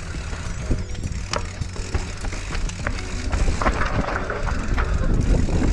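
Enduro mountain bike riding down a dry dirt trail: a constant rumble of tyres over dirt, roots and stones, with frequent sharp clicks and rattles from the bike and loose rocks.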